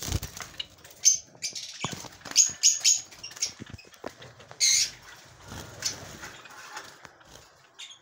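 Java sparrows in a wire cage fluttering and giving short, high chirps, mixed with irregular knocks and rustles.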